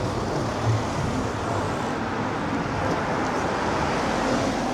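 Steady road traffic noise with no distinct events.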